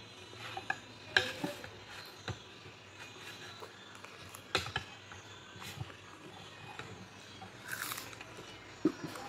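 Eating sounds: a plastic spoon clicking against a ceramic bowl and plate, with chewing and mouth noises in between. The clicks are sharp and scattered, a handful over the stretch.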